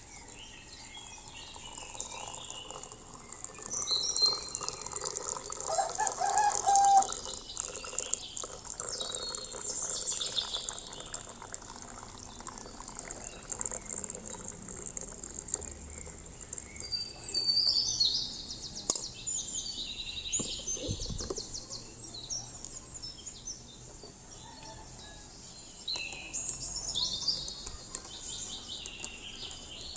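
Birds chirping and calling in repeated bursts, with a brief lower call about six seconds in.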